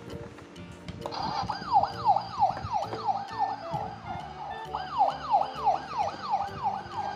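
Battery-powered toy fire truck's electronic siren wailing in fast, repeating rises and falls, about three a second. It starts about a second in and breaks off briefly midway before starting again.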